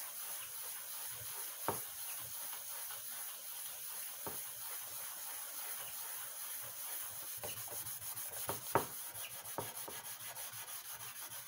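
Green scouring pad of a kitchen sponge scrubbing the bottom of an aluminium pan coated with aluminium-cleaning paste: a steady rasping rub, with a few light knocks of the pan.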